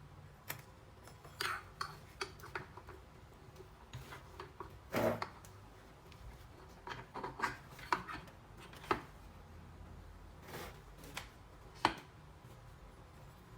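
Irregular clicks, taps and light clatters of tools and small engine parts being handled, with a longer knock about five seconds in and a sharp click near the end, over a low steady hum.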